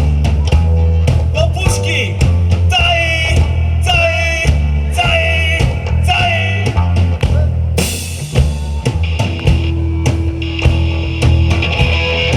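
Rock band playing: a drum kit beating out a steady rhythm under electric guitars and bass guitar, with a bending lead melody line.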